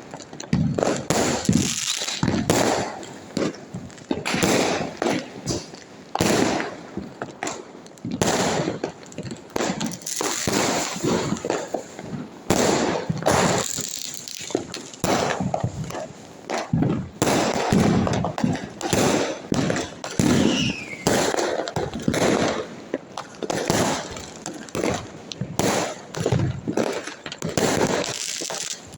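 Firecrackers and fireworks going off continuously, many overlapping bangs and crackles several times a second, with a short falling whistle about two-thirds of the way through.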